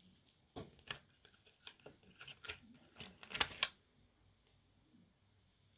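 Faint clicks and crinkles of plastic false-eyelash packaging being handled as the strip lashes are taken out of their tray, a quick irregular run of them with the loudest near the end, then stopping.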